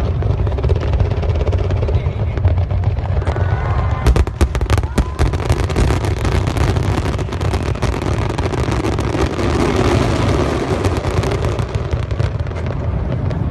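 Fireworks display: booming shells over a steady low rumble, with a dense run of crackling pops about four to six seconds in and scattered crackles after.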